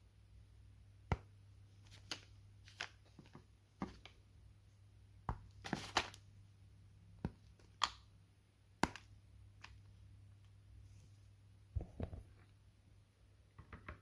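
Chocolate packaging being handled: irregular sharp clicks and taps of cardboard and wrapper, with a couple of brief rustles about six seconds in and again near twelve seconds.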